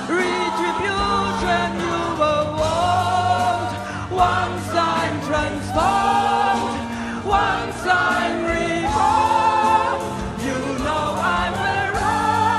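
Mixed choir of men and women singing in parts, live, backed by piano, bass guitar and drums.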